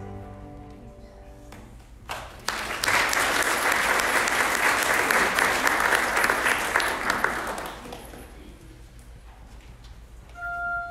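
A held chord from choir and instruments fades out, then the congregation claps for about five seconds, the applause dying away. Near the end, instruments begin holding new notes.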